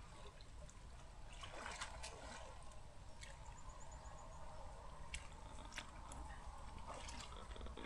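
Faint trickling and dripping water, with a few light ticks and drips scattered through.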